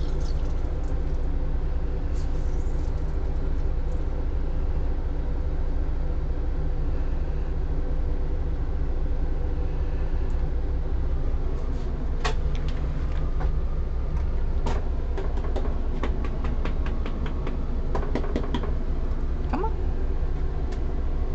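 Steady low machine hum with several held tones. From about halfway through there is a run of light clicks and taps as the dog is handled in and out of the metal grooming tub.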